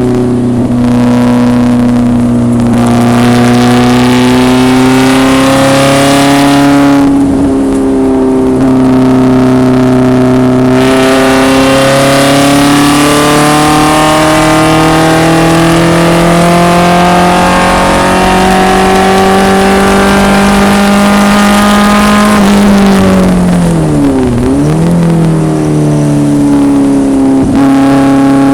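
1974 BMW 2002 racecar's four-cylinder engine at hard throttle on track, its pitch climbing slowly and steadily with a few shift steps. About 23 seconds in, the pitch drops and jumps sharply twice, as in braking with blipped downshifts, before the engine pulls again near the end.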